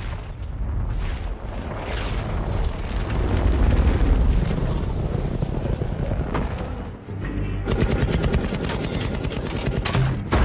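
Film action soundtrack: a music score under battle booms and impacts of fireballs landing, then, about three-quarters of the way through, a burst of rapid automatic gunfire.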